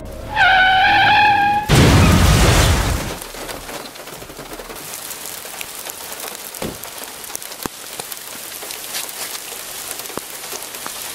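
A car horn sounds one steady blast for just over a second, then a loud crash fades over about a second and a half. Steady rain falls after it, with scattered small ticks.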